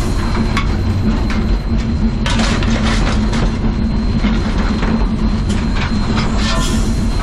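Cab noise of the NZR Ja class 4-8-2 steam locomotive 1260 under way: a steady rumble with clanks and rattles from the footplate. A louder rushing hiss joins about two seconds in.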